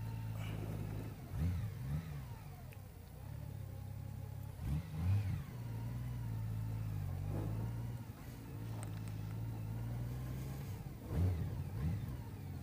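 Motorcycle engine running steadily, with several brief revs that rise and fall in pitch.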